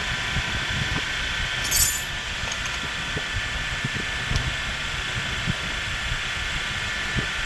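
Steady background hum with a brief bright metallic clink about two seconds in, then a few faint knocks.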